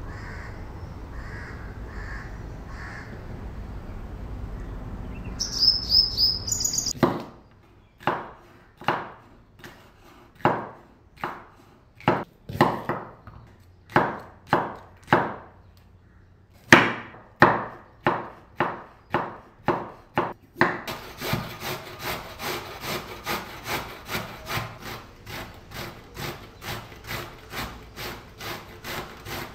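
A knife chopping through green bell pepper on a bamboo cutting board, in separate sharp strokes roughly one a second. From about two-thirds of the way in, a vegetable is rubbed up and down a metal box grater in fast, even scraping strokes, about three a second. A short run of high chirps comes just before the chopping starts.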